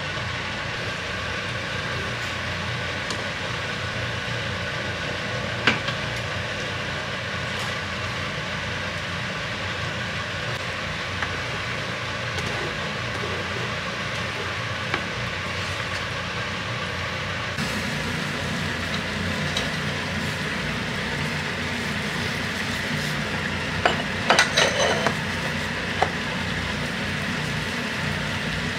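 Cream sauce simmering in a frying pan while it is stirred with a wooden spatula. Then, a little past halfway, a saucepan of water at a rolling boil, with a quick cluster of clinks from utensils or cookware about three-quarters of the way through.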